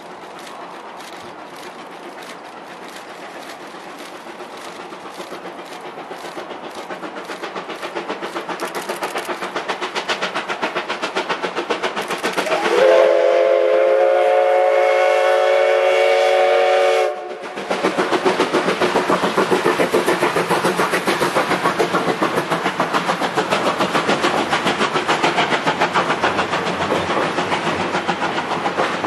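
Steam locomotive approaching, its exhaust chuffing in an even rhythm that grows louder and quicker. About halfway through, its steam whistle blows one long blast of about four seconds, then the engine passes and its passenger coaches roll by, wheels clicking over the rail joints.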